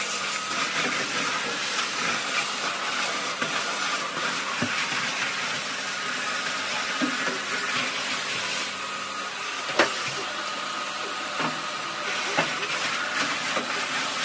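Canister vacuum cleaner running steadily with a hissing suction as its floor nozzle is pushed over wooden deck tiles, with a few sharp clicks, the loudest about ten seconds in.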